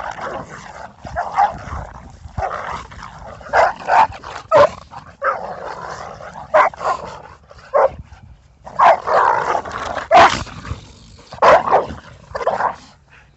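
Two pit bulls play-fighting, giving many short barks and yips in quick bursts with sharp scuffling noises between them. It is rough play in which the female is pressing to dominate the male.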